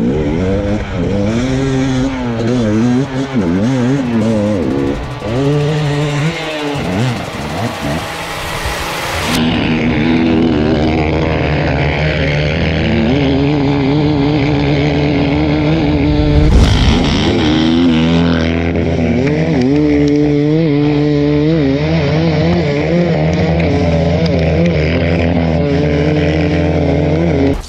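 Enduro dirt bike engines revving hard under load, pitch rising and falling with the throttle, with a second bike's engine running steadily alongside after about nine seconds. A brief loud bang comes about two-thirds of the way through.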